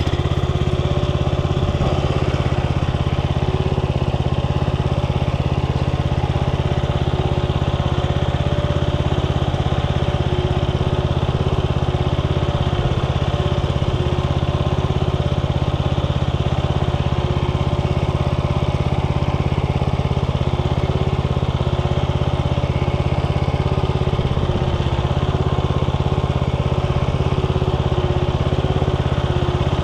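Mobil K Gepard walk-behind tractor's engine running steadily under load as it pulls rotary star weeders and cultivator tines through potato interrows, with an even, unchanging engine note.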